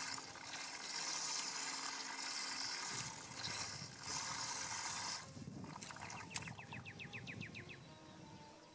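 Boat's electric trolling motor running with a steady whirring hum and hiss, cutting off about five seconds in. A quick run of about a dozen light clicks follows.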